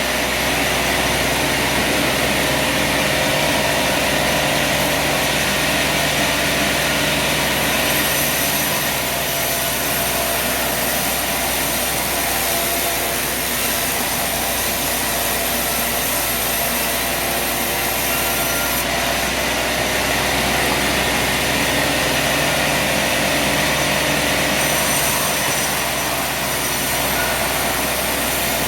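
Sawmill running: a steady engine drone with a strong high hiss from the saw, its tone shifting slightly a few times.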